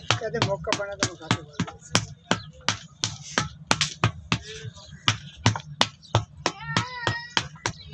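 Background music with a fast, even snapping beat, about five beats a second, and a short sung or rapped line near the end.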